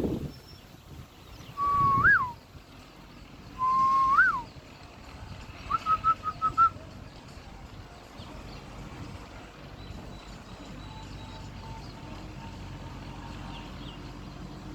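A bird whistling: two clear calls, each a held note that sweeps sharply up and drops away, followed about two seconds later by a quick run of six short notes. A low steady rumble runs underneath.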